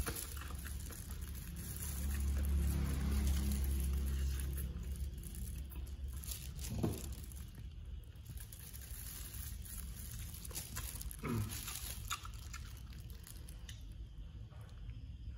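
A person eating chicken feet with a plastic-gloved hand: quiet chewing and sucking with scattered small clicks, and a sip from a beer can near the end.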